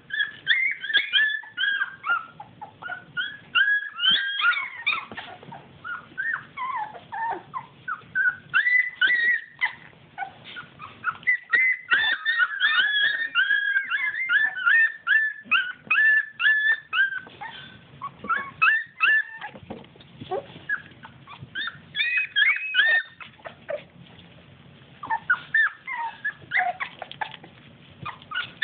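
A litter of young puppies whimpering and squealing: many short, high-pitched cries overlapping almost without a break, each dropping in pitch, with a few brief lulls.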